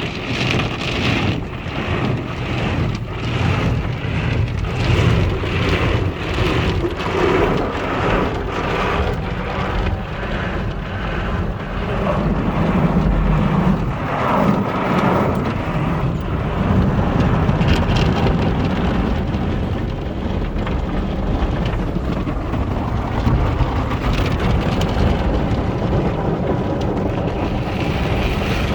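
Automatic car wash tunnel heard from inside the car: cloth brushes and water spray beating on the body, with a fast rhythmic slapping in the first part that settles into a steady wash of spray and rumble.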